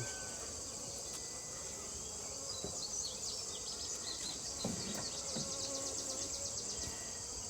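Steady high-pitched shrilling of an outdoor insect chorus, crickets or similar. A faster rhythmic chirping trill joins about two and a half seconds in and fades near the end.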